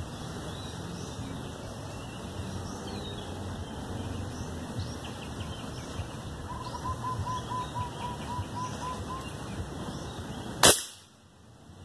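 A single sharp air-rifle shot firing a .22 pellet, near the end. Earlier a bird calls a quick run of about ten even notes over a steady outdoor background.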